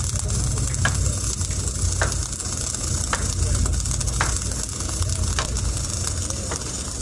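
Electric arc welding: a steady crackling sizzle from the welding arc, over a low hum, with a short tick about once a second.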